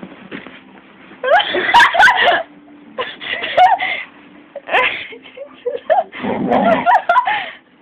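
A young woman laughing and squealing in about four short bursts.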